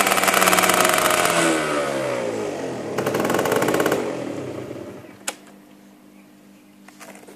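Aprilia SR 50 R scooter's two-stroke 50 cc engine revved, its pitch sliding down as the revs fall back, then blipped once more about three seconds in. The engine sound drops away about five seconds in, followed by a single sharp click.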